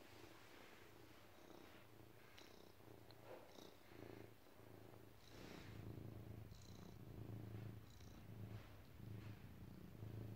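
Domestic cat purring quietly while being stroked and massaged, the purr swelling and fading about once a second with its breathing and growing louder about halfway through. Faint rustling of fingers in the fur and the fleece blanket.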